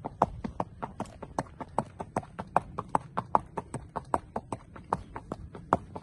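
A ridden horse's hooves clip-clopping on a dirt track: a quick, even run of sharp hoofbeats.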